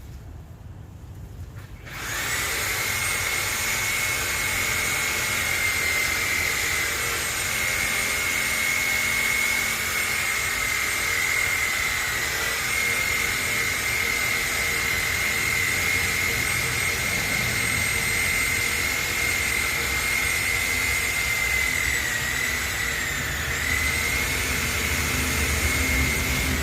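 A motor-driven tool starts about two seconds in and runs with a steady high whine over a rushing noise. The pitch dips briefly near the end, as if it was loaded for a moment.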